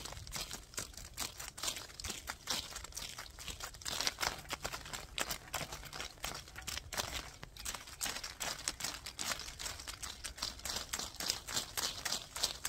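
Brush bristles scraping and rubbing over the microphone: a dense, irregular crackle of fine scratches, with a short lull about seven seconds in.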